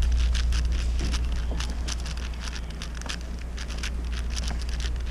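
Rapid, irregular clicking and clacking of a Moyu Weishi 6x6 speed cube's layers being turned fast during a solve, over a steady low hum.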